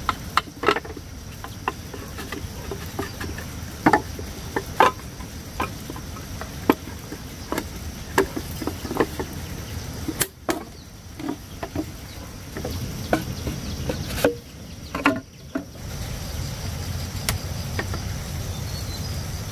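Irregular hollow knocks and clacks of green bamboo tubes being handled and fitted together into a chair frame. A steady high insect drone runs underneath.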